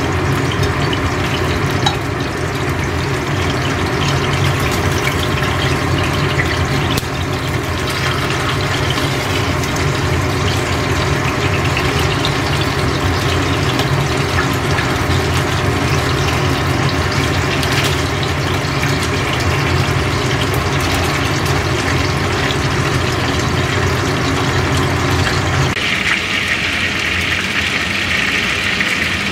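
A large fish tail deep-frying in a pan of hot oil, bubbling and sizzling steadily over a steady low hum. Near the end the hum drops away and the sizzle turns brighter and hissier.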